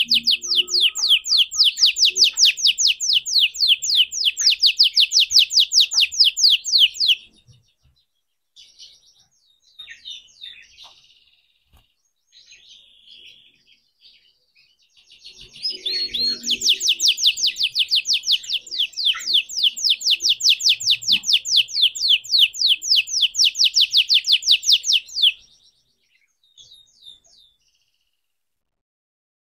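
Red canary singing: a long trill of fast, evenly repeated high notes for about seven seconds, soft scattered twitters, then a second long trill from about fifteen seconds in, lasting some ten seconds.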